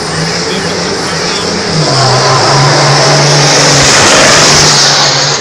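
Volkswagen diesel race truck's engine running hard with a low, steady drone, then building to its loudest about three to four seconds in as it launches down the drag strip and passes close by.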